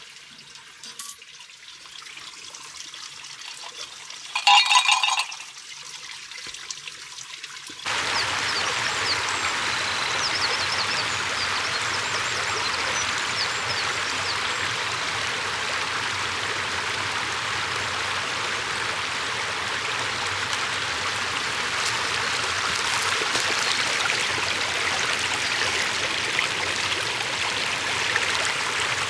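Shallow stream running over rocks: a steady rush of water that starts abruptly about eight seconds in and holds even from then on. Before it, a short, loud ringing sound about four and a half seconds in.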